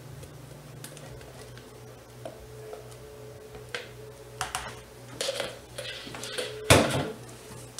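Plastic measuring jug knocking and scraping against the rim of a mixing bowl as milk is emptied into soap batter, with a handful of clattering knocks in the second half, the loudest near the end. A steady low hum runs underneath.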